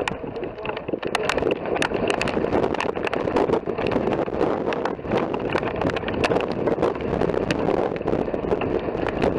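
Wind rushing over the microphone outdoors, with a dense, irregular scatter of sharp clicks and crackles.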